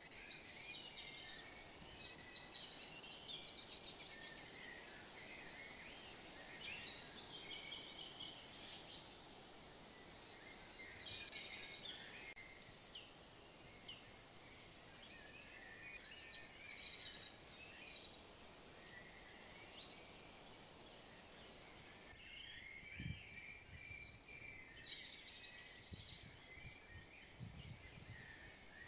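Faint chorus of songbirds chirping and singing. A few soft low thumps come in near the end.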